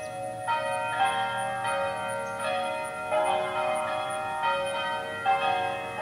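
Church bells ringing a peal: several bells struck one after another, each note ringing on and overlapping the next.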